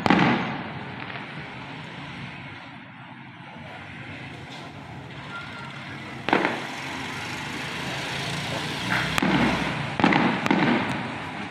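Aerial fireworks bursting: a loud boom at the start that fades out, another about six seconds in, then a quick run of booms and sharp cracks near the end.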